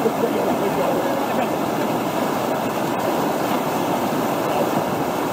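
River whitewater rushing steadily over a standing wave and the rocks beside it.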